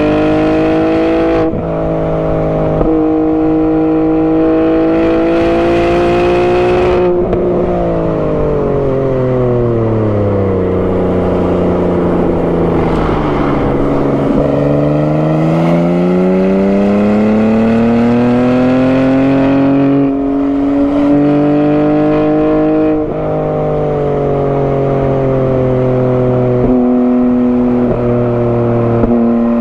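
BMW G80 M3's twin-turbo 3.0-litre inline-six engine and exhaust, with a non-resonated midpipe, running hard on track. The pitch rises and falls with throttle and gear changes: a long slow fall in revs about seven seconds in, then a long climb from about fourteen seconds, broken by several sudden drops as gears are changed.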